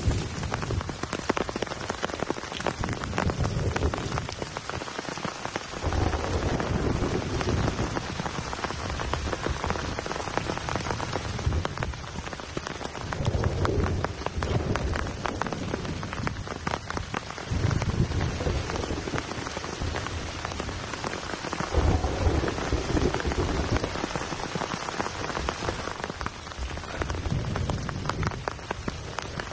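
Heavy rain falling steadily, with many close drop strikes and deep rumbles that swell and fade every few seconds.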